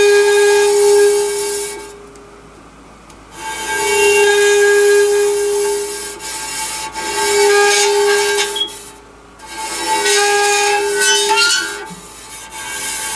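A metal plate bowed again and again to make cymatic patterns, each stroke a second or two long, ringing a steady tone with overtones over a scratchy rubbing noise.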